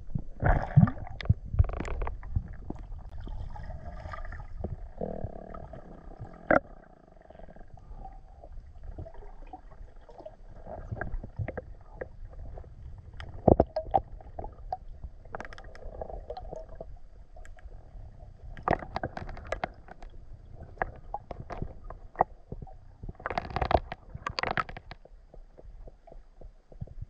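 Underwater sound picked up by a camera in its waterproof housing while the diver swims: a low muffled rumble of moving water with scattered clicks and knocks, and short louder bursts of noise near the start, about two-thirds of the way through, and near the end.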